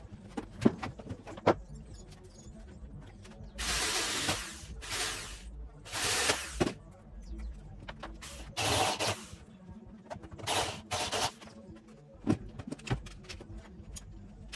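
Hand-held pneumatic tool on a compressed-air line, triggered in about five short bursts of air hiss under a second each, with sharp metallic clicks of tool handling near the start and again near the end.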